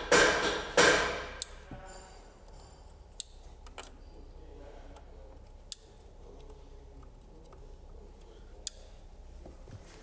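Fuel-injector wiring connectors being plugged back in under the hood of a car with an engine that is not running: a few sparse, sharp clicks with light handling noise between them.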